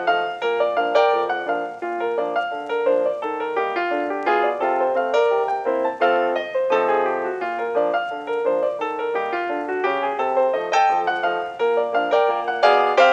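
Background piano music with quick, busy notes at a steady level.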